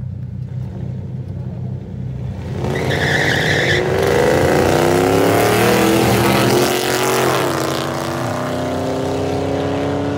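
Two cars in a street drag race: engines idling, then launching hard about three seconds in and revving up as they accelerate past, loudest in the middle. The engine pitch falls as they go by, then a slowly rising engine note follows as they pull away down the road.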